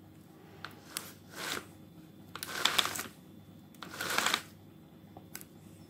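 Pole chainsaw's saw chain being worked by hand on its bar while the new chain's tension is set, the steel links rattling and clicking in three short bursts, the loudest about halfway through, with a few single clicks between.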